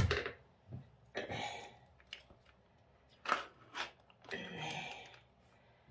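Scattered handling sounds: a few short rustles and crinkles with sharp taps in between.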